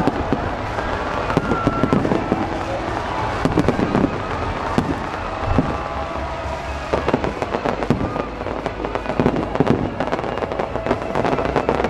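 Fireworks finale: a dense barrage of aerial shells bursting, with irregular overlapping bangs coming in quick succession over a continuous rumble.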